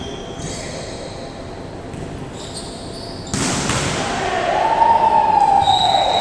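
Indoor volleyball play in an echoing gym: the ball is struck hard a little past the middle. A long raised shout follows, trailing off slightly at the end.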